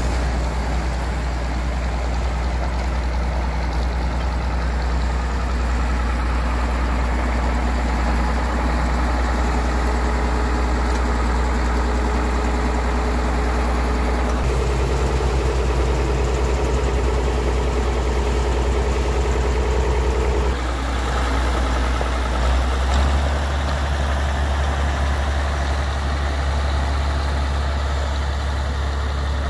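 International Farmall 560 tractor's six-cylinder engine running steadily at low speed. Its note shifts about halfway through and again a little later.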